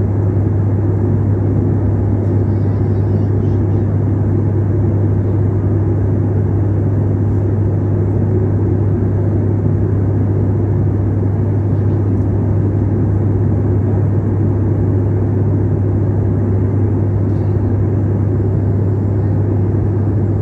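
Steady drone inside a passenger plane's cabin in flight: engine and airflow noise with a strong low hum that never changes.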